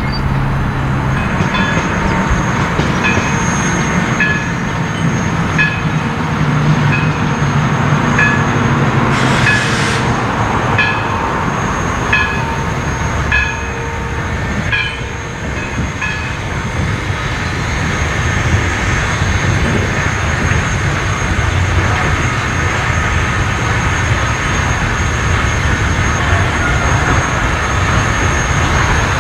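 East Broad Top #16, a narrow-gauge 2-8-2 steam locomotive, working through a rail yard: a steady rush of steam and running noise. For the first half there are regular light clanks about once a second, and a short burst of hiss comes about ten seconds in.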